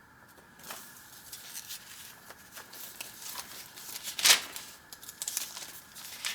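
Paper pages and ephemera in a thick journal being handled and turned, rustling and crinkling, with one louder crackle of paper about four seconds in.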